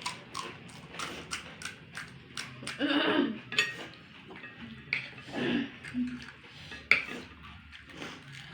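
Repeated light clicks and clinks of plates, bowls and a spoon as fuchka are eaten, with a few short vocal sounds from the eaters.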